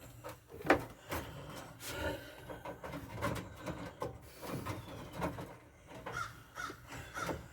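Scattered knocks, taps and scrapes of hands and tools working a wire through a drilled hole in a travel trailer's wall panel, with one sharper knock about a second in.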